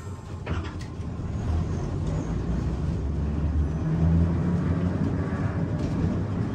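Heritage electric tram running on its rails: a low rumble of wheels and motor that grows louder over the first few seconds.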